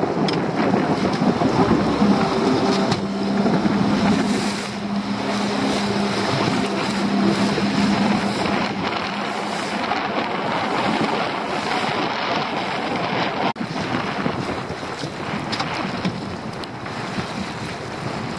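Wind buffeting the microphone and a choppy sea splashing around a small open fishing boat. A low steady hum starts about two seconds in and fades out near the middle.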